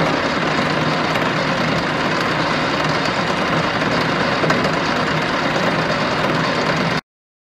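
Sheldon EM-46-P precision lathe running with no load, its 3-jaw chuck spinning: a steady mechanical whir of motor, belts and headstock gears. The sound cuts off abruptly about seven seconds in.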